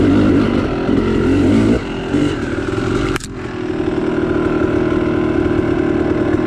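Yamaha YZ two-stroke dirt bike engine heard from the rider's seat. It revs unevenly on the throttle for the first couple of seconds. Just past the three-second mark it drops back and runs at a steady low speed as the bike stops.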